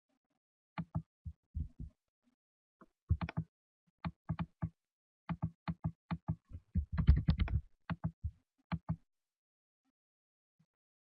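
Typing on a computer keyboard: a scattered series of dull key taps, with a quick run of keystrokes about seven seconds in.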